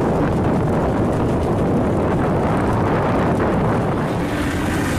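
Steady, loud rushing and rumbling noise from a volcanic eruption, with wind buffeting the microphone.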